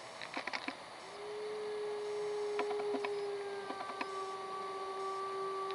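White wolf howling: one long howl held at a steady, even pitch, starting about a second in. A few light clicks come just before it.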